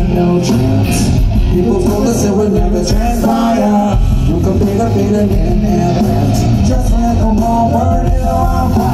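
Live rock band playing loud through a concert PA, heard from within the crowd: electric guitars, bass and drums. The bass and low drums drop out briefly about three seconds in, then come back in.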